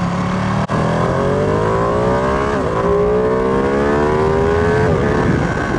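Ducati Panigale V2's twin-cylinder engine accelerating hard, its pitch rising steadily, with two brief breaks about two and a half and five seconds in as it shifts up. Wind noise rushes over the helmet-mounted mic underneath.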